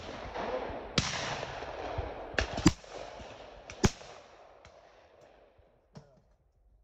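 Several sharp shotgun reports over the first four seconds, two of them close together, each trailing a long rolling echo that fades away.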